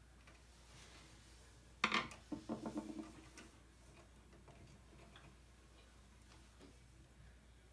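Handling noise: a quick cluster of knocks and rattles about two seconds in, followed by a few faint scattered clicks over a low steady hum.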